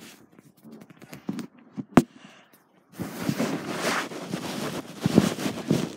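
A phone being handled and rubbed close to its own microphone: scattered small clicks, one sharp click about two seconds in, then loud rustling and scraping with a few knocks from about three seconds in.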